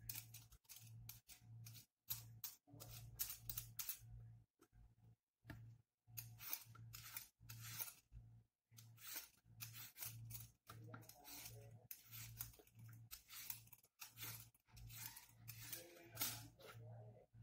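A raw potato being peeled with a hand-held peeler: a quick series of short scraping strokes, about one or two a second.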